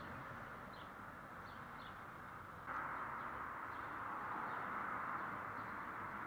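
Steady outdoor background hiss with faint, repeated small-bird chirps; the hiss steps up suddenly a little under three seconds in.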